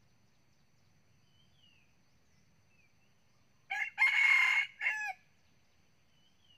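Red junglefowl rooster crowing once, about four seconds in: a short, clipped crow of about a second and a half in three parts, a brief first note, a long middle and a falling end.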